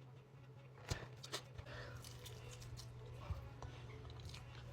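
Faint eating sounds: chewing and mouth noises with a few short clicks, the sharpest about a second in, over a steady low hum.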